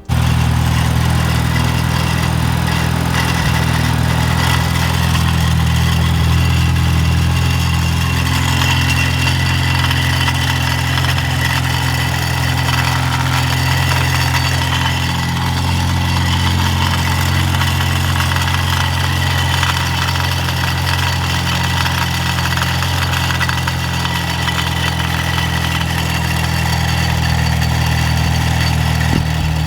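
Mini Cooper S's turbocharged four-cylinder engine idling steadily, with a rattle that the owner traces to a loose downpipe mounting bracket by the heat shield.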